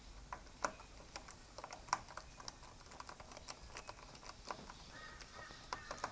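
Irregular light clicks and clinks of hand tools working on a motorcycle's handlebar bolts, with a brief faint high tone about five seconds in.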